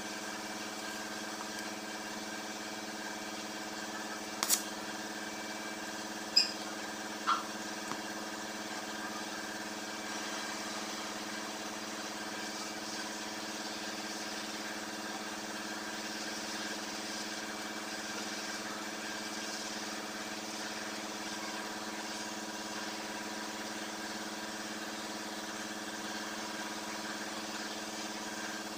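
A machine running with a steady, even hum of several pitches. A few sharp clinks come between about four and eight seconds in.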